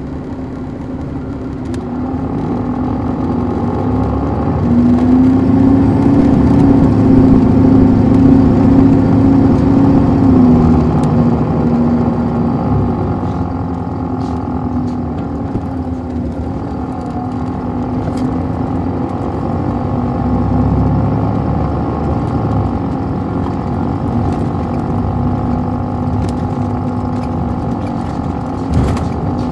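Caterpillar C13 ACERT diesel engine of an MCI D4500CL coach bus pulling away from idle. It rises in pitch and loudness over the first several seconds, drops about ten seconds in, and then runs steadily. A short knock sounds near the end.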